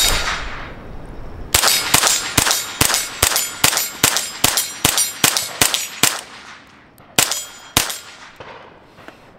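Suppressed .22 LR CZ Scorpion firing semi-automatic: one shot at the start, then a fast, evenly paced string of about a dozen shots, roughly two and a half a second, then two more shots near the end. Each shot is followed by a metallic clang as the steel gong target rings.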